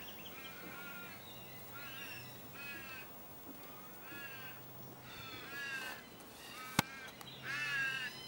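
A crow cawing over and over, a loose run of harsh calls a fraction of a second to a second apart. There is one sharp click about two-thirds of the way through.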